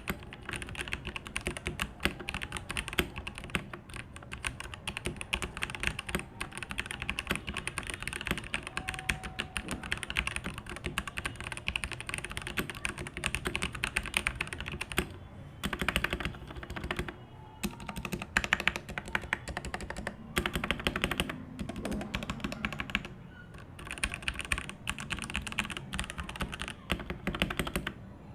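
Fast typing on a mechanical keyboard: a dense run of key clicks and clacks, with a few short pauses between bursts.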